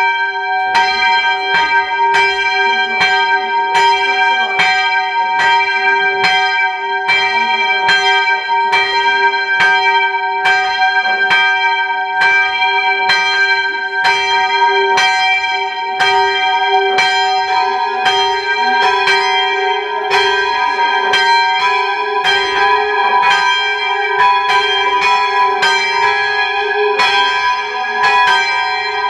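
Church tower bells rung full-circle by a band of ringers: an even, unbroken run of strokes, each ringing on into the next, heard from the ringing chamber inside the tower.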